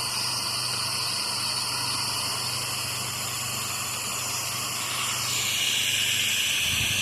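Pressure washer spraying a rinse through an XJET nozzle: a steady hiss of high-pressure water spray over the low, even hum of the machine. About five seconds in, the hiss drops lower in pitch and gets a little louder.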